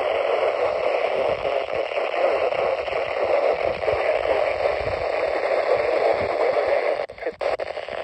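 Static hissing from a Midland NOAA weather radio's small speaker while it is tuned between weather-band channels, with no station voice coming through. It cuts out briefly twice about seven seconds in, as the tuning steps to the next channel.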